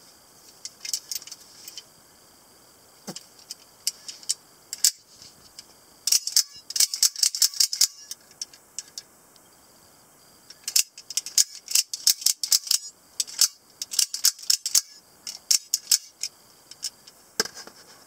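Sharp metallic clicks and snaps from an out-the-front automatic knife being operated and handled: its spring-driven blade snapping out of and back into the handle, the slider and loose parts clicking. Single snaps early on, then two flurries of rapid clicking in the middle.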